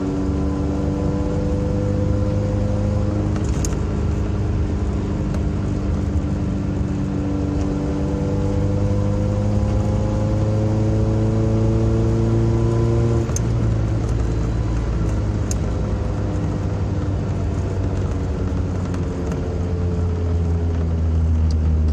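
Toyota 4x4 truck's engine and exhaust under way, its header leak wrapped with exhaust wrap. The engine note climbs slowly as it accelerates, drops sharply about thirteen seconds in as the automatic transmission shifts up, then starts climbing again.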